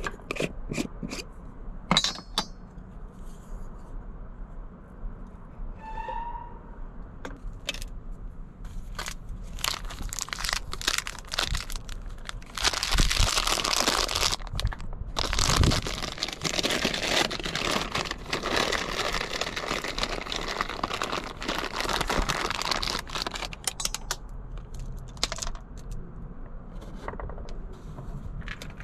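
Plastic pouch of chocolate chips being pulled open and handled, crinkling loudly in the middle stretch. A few sharp clicks near the start, from a glass jar lid being worked.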